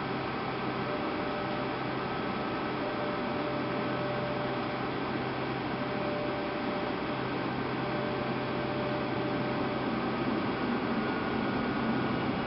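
Cabin hum of a Boeing 757-200 waiting on the ground with its engines at idle: a steady drone with several steady tones over a noise haze, growing slightly louder near the end.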